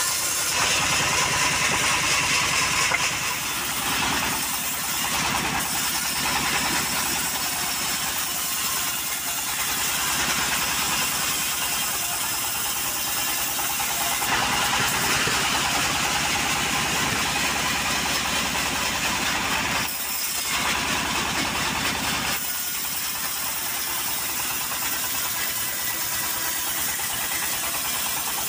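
Homemade band sawmill running, its blade cutting through timber over the steady drone of the machine. The sound shifts a few times as the work changes.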